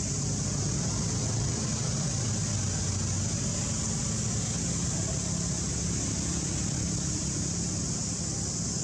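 Steady outdoor background: a constant high-pitched hiss over a low, even rumble like distant engines, with no calls or sudden sounds.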